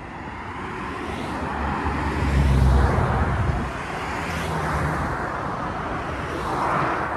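Road traffic on a multi-lane street: a vehicle drives past with a low engine hum and tyre noise, swelling to loudest about two and a half seconds in and then fading back to a steady traffic roar.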